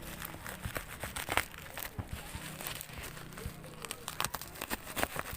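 Plastic parcel packaging being cut and torn open: irregular crinkling and tearing crackles, the sharpest a little over a second in.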